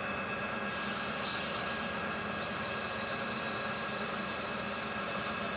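Metal lathe running at steady speed, turning a stainless rifle barrel while abrasive cloth polishes its freshly cut muzzle threads: a constant hum with a steady high whine and an even hiss.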